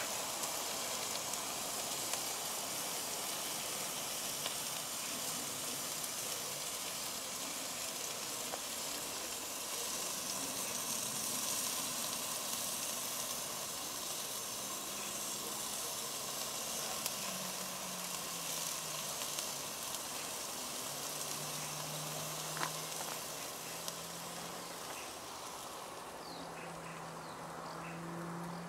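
Marinated meat sizzling steadily on the grate of a charcoal grill over white-hot coals, with a few small pops. The sizzle fades a little near the end, under a faint low hum.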